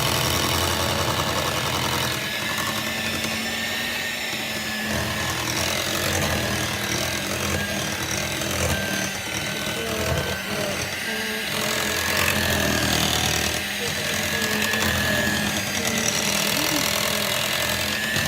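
Electric hand mixer running steadily, its beaters churning cake batter as dry ingredients are mixed in, with a thin steady whine over the motor hum.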